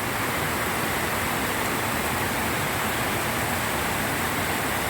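Heavy tropical rain pouring down with water streaming along the flooded street, a steady dense hiss that swells slightly at the start and then holds even.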